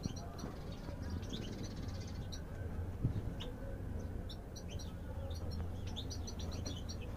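European goldfinches chirping in short, high twittering calls that come in scattered bursts, busiest in the second half, over a low steady hum. There is a soft knock about three seconds in.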